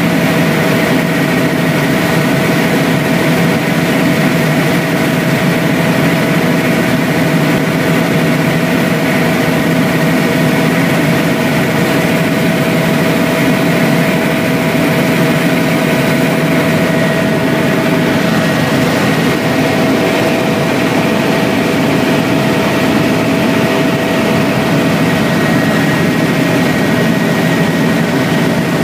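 Helicopter in flight heard from inside the cabin: a steady, loud engine and rotor noise with a few constant whining tones, unchanging throughout.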